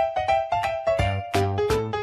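Upbeat background music with quick, pitched notes over a steady beat.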